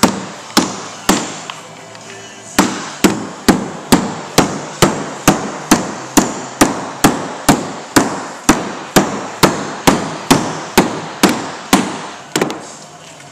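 Rubber mallet tapping a banner stand's metal top rail down onto the banner to seat it: a steady run of sharp knocks about two a second, with one short pause after the first few. The knocks stop near the end.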